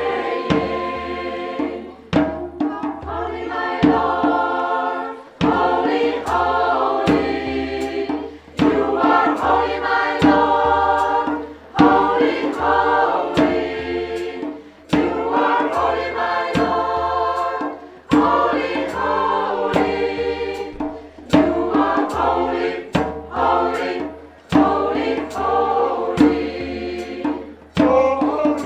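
Mixed choir singing in parts, in phrases that break off and start again, with sharp percussive hits landing every second or two. It is one of the choir's two opening African pieces.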